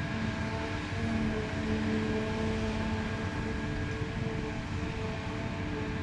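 Heavy diesel farm machinery running steadily: a deep, even engine drone with steady tones above it.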